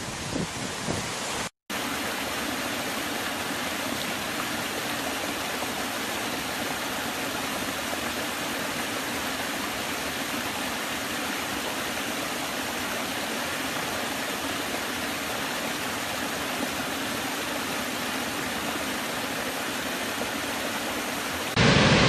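Small stepped woodland cascade: water pouring steadily over low rock ledges into a shallow stream, an even rushing splash. It opens briefly on gusty wind buffeting the microphone over a larger waterfall, and near the end cuts to the much louder, deeper rush of a huge waterfall.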